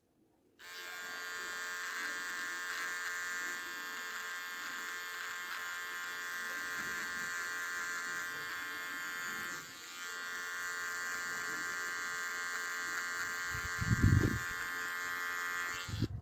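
Cordless electric beard trimmer switched on about half a second in, buzzing steadily as it cuts along the sideburn and cheek, with a brief dip near the middle. A loud low thump comes near the end, and the trimmer cuts off just before the end.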